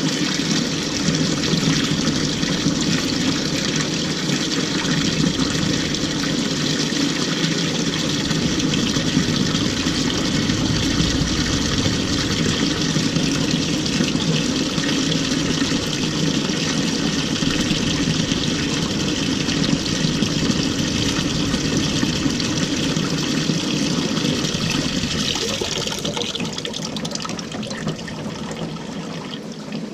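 Water pouring steadily into the drum of an LG 18 kg top-load washing machine as it fills, the sound easing off over the last few seconds.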